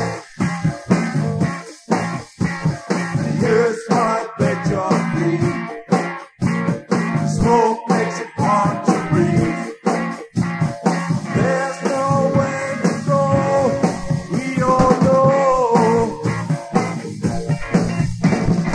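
Rock band playing: drums keep a steady beat under bass and guitar, with a wavering melody line on top.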